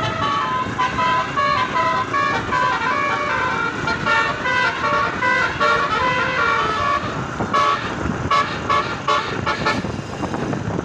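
A bus's telolet Basuri horn, a multi-tone musical horn, playing a quick tune of stepping notes. About seven seconds in the melody gives way to a run of short staccato blasts, over a low rumble.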